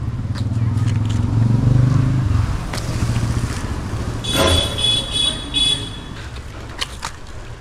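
A motor vehicle's engine passing close by, swelling over the first couple of seconds and then fading away. About four to six seconds in come a few short rattling, scraping sounds.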